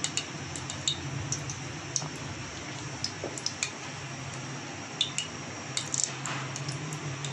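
Desi ghee heating in a kadai, with irregular small pops and crackles as it comes up to frying heat, over a steady low hum.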